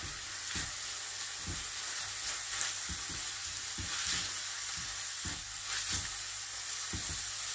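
Beef mince, onion and garlic sizzling in a saute pan, with the scrape and knock of a spatula stirring it every half second to a second.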